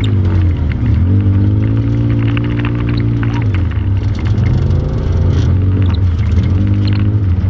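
ATV engine revving up and down repeatedly under load as it works over rough ground, with scattered knocks and clatter from the machine.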